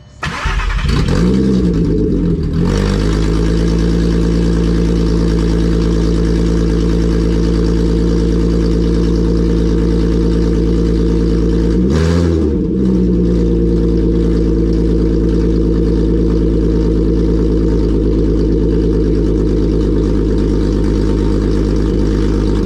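Volkswagen MK4 GTI's 24-valve VR6 engine starting with almost no exhaust fitted, only downpipes and a cat-delete pipe, so it is nearly open header. It catches right away, flares up in revs, settles to a loud idle and is blipped once briefly about twelve seconds in.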